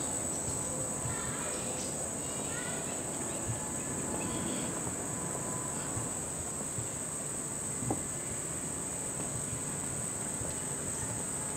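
Insect chorus buzzing on one steady high pitch without a break, with a single soft click about eight seconds in.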